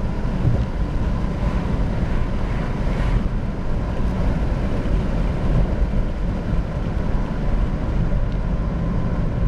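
BMW E46 320d's four-cylinder turbodiesel with a tuned exhaust, heard from inside the cabin cruising at just under 2,000 rpm and slowly losing speed: a steady low drone mixed with road and wind noise.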